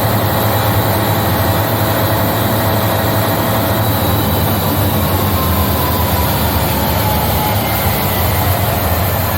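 Marine emergency diesel generator running steadily in a VR training simulation: a loud, even, low engine drone.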